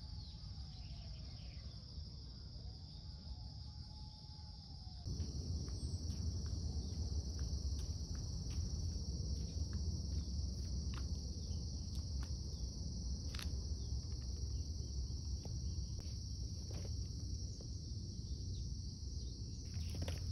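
Steady high-pitched chorus of crickets and other insects, unbroken throughout. A low rumble joins it about five seconds in, with a few faint clicks.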